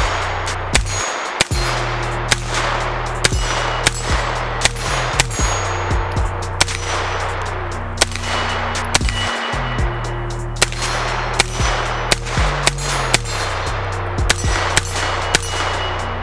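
A 9mm AR-style direct-blowback pistol firing a steady string of single shots, about two a second, with a few short pauses. It cycles without a stoppage while feeding from an ETS magazine. Background music with a steady bass line plays underneath.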